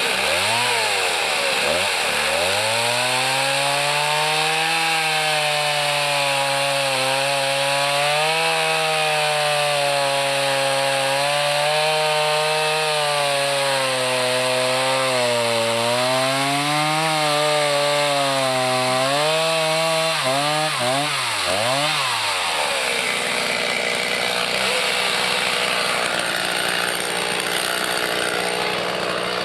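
Chainsaw engine running under load, cutting wood, its pitch dipping and recovering over and over for about twenty seconds. Near the end the steady engine note gives way to a noisier, higher sound.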